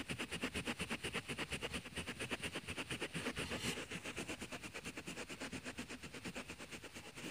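A vinegar-soaked cloth towel being scrubbed hard and fast against woven car-seat upholstery, a rapid even rhythm of rubbing strokes, to lift out play slime. The scrubbing eases off slightly near the end.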